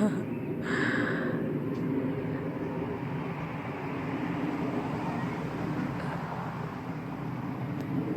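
Steady low rumble of distant engine noise, with a brief higher-pitched sound about a second in.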